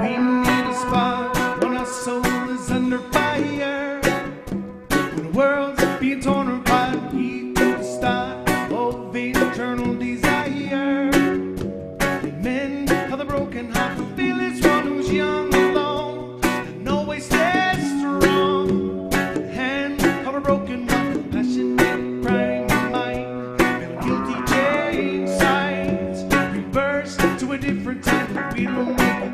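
Live rock-reggae band playing: electric and acoustic guitars, a ukulele and conga drums keeping a steady beat, with a man singing.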